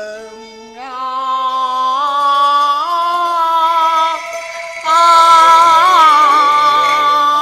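Cantonese opera singing: a voice draws out long held notes over instrumental accompaniment. It steps up in pitch and ornaments the notes with short wavers.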